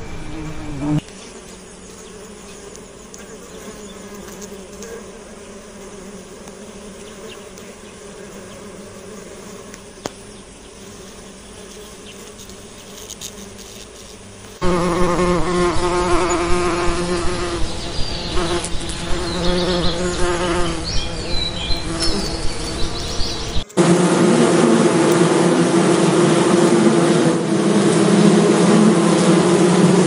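Honeybees buzzing with a steady, low wing hum. The buzz is faint at first, then suddenly much louder from about halfway, with small regular peaks about twice a second. It changes abruptly to another loud, steady buzz near the end.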